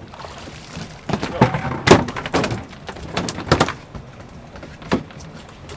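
A string of irregular knocks and thumps on a fishing boat, loudest about two seconds in, with a last single knock near five seconds.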